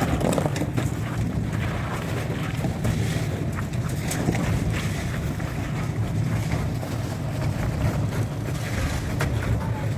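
A small engine running steadily on a concrete pour job, with scattered short knocks and scrapes over its drone.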